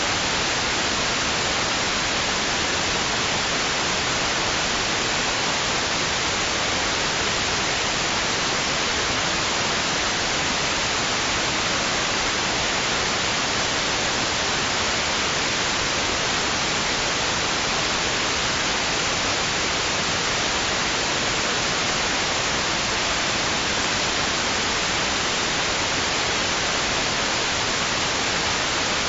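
Steady white noise: an even, unchanging hiss with no swells or breaks.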